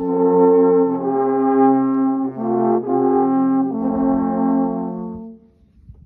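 A group of seven alphorns playing together: a slow phrase of long held notes that change several times, then dying away about five seconds in.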